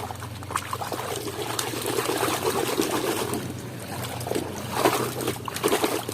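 Water trickling and splashing over a muddy toy as it is rinsed clean, with a few light knocks from handling it near the end.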